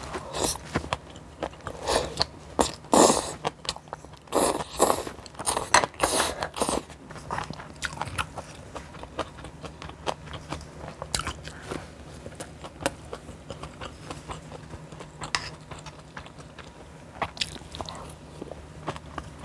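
Close-miked eating: loud crunching bites and chewing for the first several seconds, then softer, scattered chewing sounds.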